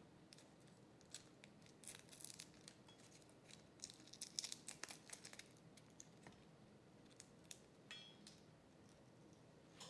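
Faint, scattered clicks and short scrapes of hands working with food and utensils at a kitchen counter. They cluster most thickly about four to five seconds in.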